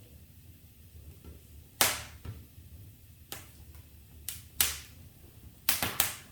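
Wood fire in a fireplace crackling, with about eight sharp pops scattered through it and a quick cluster of three near the end.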